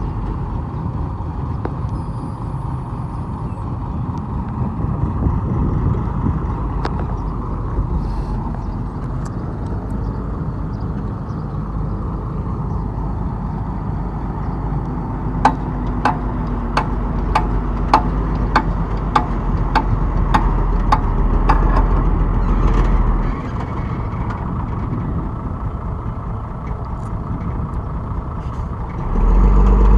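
Heavy diesel earth-moving machinery running steadily with a deep engine hum. About halfway through comes a run of a dozen sharp clanks, about two a second. Near the end the engine comes back louder.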